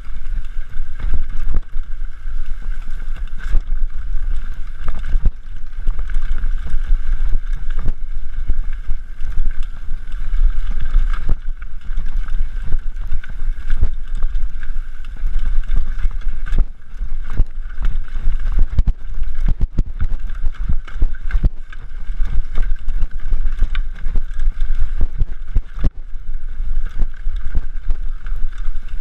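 Wind rumbling on the microphone of a mountain bike riding downhill, with frequent short knocks and rattles from the bike over rough trail.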